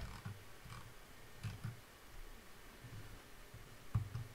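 A few faint computer mouse clicks, the loudest about four seconds in, among soft low thumps.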